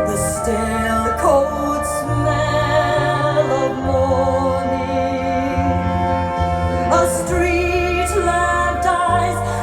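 A vinyl record playing on a VPI Prime turntable with a Soundsmith Zephyr MKIII cartridge: a woman singing in a sustained, operatic style with vibrato over a steady, stepping bass line.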